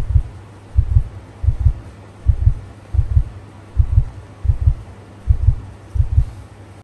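Heartbeat as heard through a stethoscope: an even run of low, paired lub-dub thumps, about one pair every three-quarters of a second.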